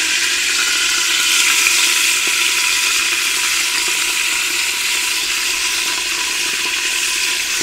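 Beef chunks searing in hot fat in an aluminium Afghan kazan pressure cooker pot: a steady sizzle.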